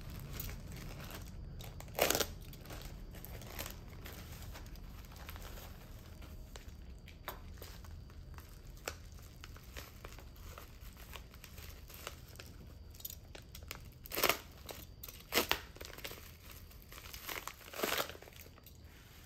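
Plastic packaging crinkling and tearing as a parcel is opened by hand: a plastic courier mailer is slit open with a utility knife, then a bubble-wrapped packet is unwrapped. Irregular rustles run throughout, with a sharp tear about two seconds in and several louder crinkles near the end.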